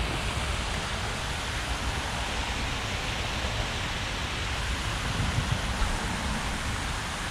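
Water pouring over a concrete spillway: a steady, even rushing hiss.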